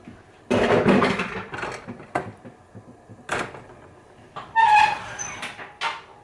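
Kitchen handling sounds: a cloth towel rubbing as hands are dried, a few sharp knocks, and a short pitched squeak about two-thirds of the way in.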